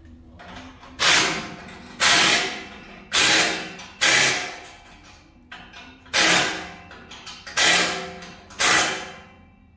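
Tool work on a car's exhaust pipes from beneath: seven loud, sudden metallic bangs, roughly one a second with a longer gap near the middle, each ringing briefly as it dies away.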